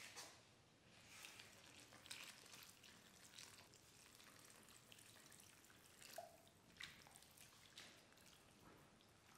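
Water poured from a plastic scoop onto dry cement mix, with a steel trowel stirring and scraping through it: a faint run of short splashes and scrapes.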